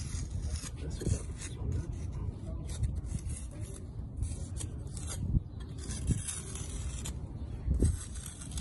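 A small metal hand tool scratching through fresh cement mortar, cutting crack-like seams into the face of an art-concrete step: a run of short, irregular scraping strokes.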